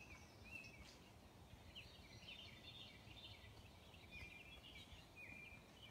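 Faint songbirds chirping and singing, a run of short whistled notes, over a low outdoor rumble.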